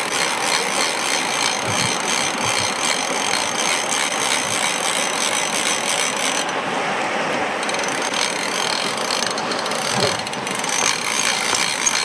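Fly reel's click-and-pawl drag rattling as line is wound in, a rapid steady run of clicks that briefly eases about halfway through.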